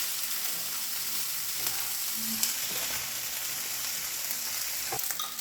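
Fried rice frying in a hot pan: a steady sizzle, with a few light clicks of a utensil in the pan.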